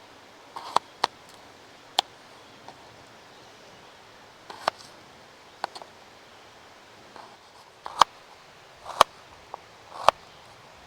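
Sharp clicks and light knocks of camp cooking gear and utensils being handled, coming singly at irregular spacing about one a second, the loudest three near the end.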